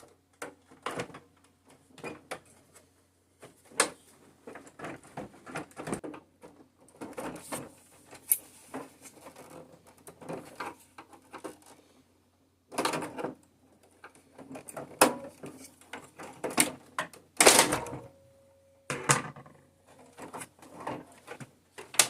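Irregular clicks, taps and rattles of plastic and metal parts being handled as a 1:6-scale New Bright RC Hummer H2 is taken apart, with the loudest rattle about three-quarters of the way through.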